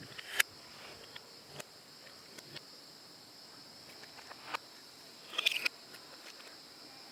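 Marbles clicking and rattling along a plastic building-block marble run: scattered single clicks, then a short quick rattle of several clicks about five and a half seconds in. A faint steady high-pitched whine runs underneath.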